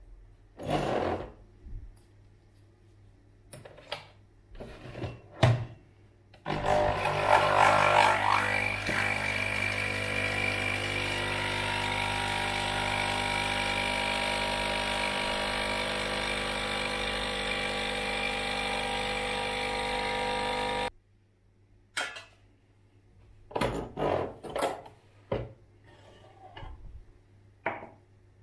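A small electric motor appliance switches on about six seconds in, runs steadily with a whine for about fourteen seconds, then cuts off suddenly. Light knocks and handling clatter come before and after it.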